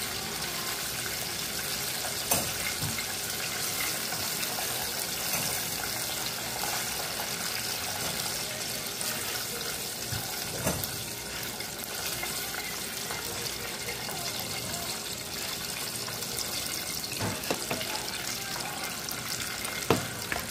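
Chicken wings deep-frying in a pot of hot oil, a steady sizzle, with a few sharp knocks as metal tongs turn the wings and lift them out.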